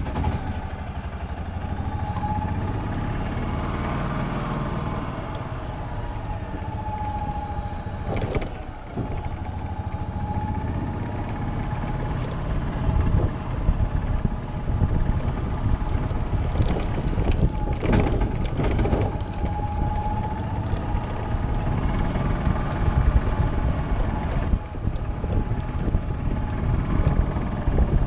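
Tracker OX400 utility vehicle driving, a steady running hum with a wavering whine over it. About halfway through the ride turns rougher and bumpier, with a few sharp knocks.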